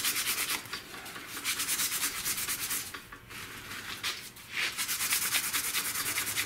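Quick back-and-forth rubbing strokes over a vinyl dash pad crack filled with super glue and baking soda, making a dry, scratchy hiss. The strokes run evenly, with two short pauses about three and four seconds in.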